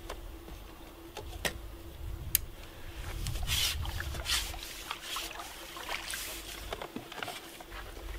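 Water splashing and dripping, with irregular clicks and short rustles, as a landing net holding a freshly caught common carp is brought in and handled.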